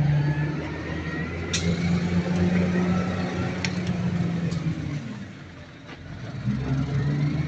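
Diesel engine of the heavy machine holding a hoisted engine on its chain, running steadily. Its note drops briefly about five seconds in, then picks up again, with a few sharp metallic clicks along the way.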